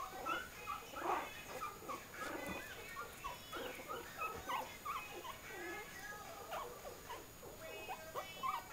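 Two-week-old pug puppies cooing and whimpering, a string of short squeaky calls that bend up and down, several a second, like pigeons cooing.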